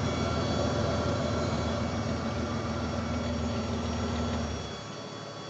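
A car's V6 engine running steadily at idle close to the exhaust, a low even hum with no revving. The low hum drops away suddenly about four and a half seconds in, leaving fainter noise.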